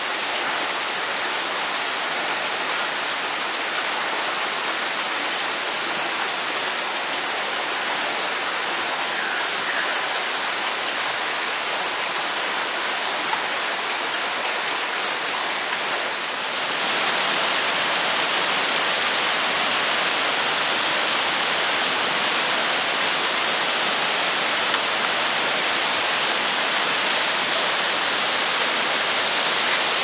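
Steady rushing of a waterfall, an even wash of noise with no distinct events. A little over halfway through the sound changes abruptly and becomes slightly louder.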